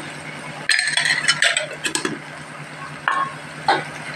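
Steel utensils clinking and scraping against a steel cooking pot as turmeric is tipped in and stirred into the wilted greens: a cluster of clinks about a second in, then two more near the end, over a low steady hum.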